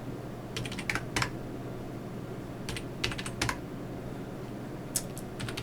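Keys tapped on a computer keyboard in three short bursts of clicks.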